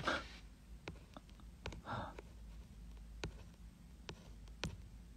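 Faint scattered sharp clicks and taps, about six in all, with a short puff of noise at the start and another about two seconds in.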